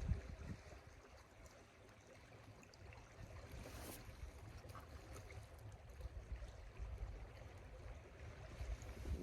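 Faint flowing river under a low, uneven rumble, with a short hiss about four seconds in.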